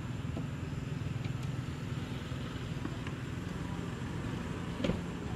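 Steady low engine hum, like a motor vehicle running nearby, with a short sharp sound about five seconds in.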